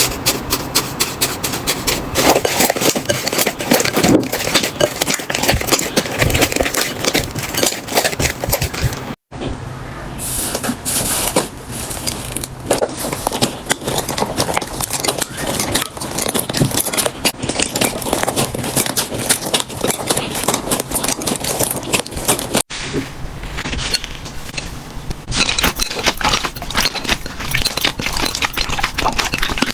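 Slime being squeezed, stretched and pressed by hands: a dense run of sticky clicks, pops and crackles. The audio cuts briefly about nine seconds in and again near twenty-three seconds as one clip gives way to the next.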